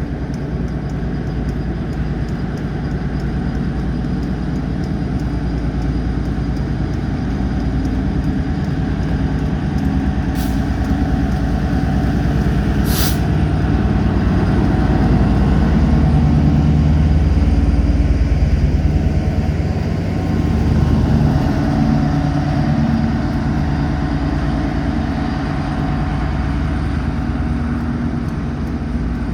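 Train engine running with a steady low rumble that grows louder toward the middle and eases slightly after. Two brief hisses of air come about a third of the way in.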